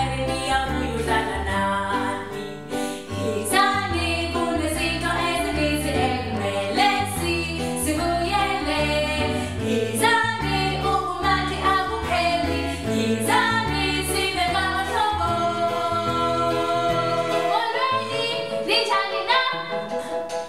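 Children's song sung in isiXhosa by voices over a backing track with a bouncing bass line and a steady beat. About three seconds before the end the bass and beat drop out, leaving held sung notes.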